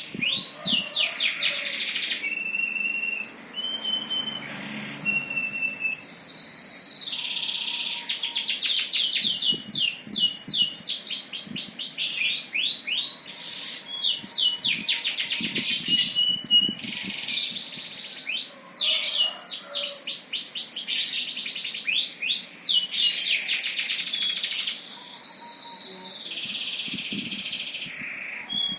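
A songbird singing in phrases of very rapid trills, each made of quick down-slurred notes, broken by short held whistled notes. The song goes on without a break, with a new burst of trills every few seconds.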